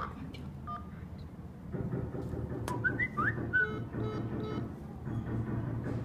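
Electronic beeps and short rising chirps from an alarm panel's call playing on a phone, with a keypad tone from a key press about three-quarters of a second in.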